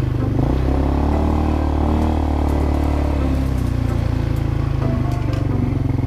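ATV engine running while riding, its note rising and falling with the throttle.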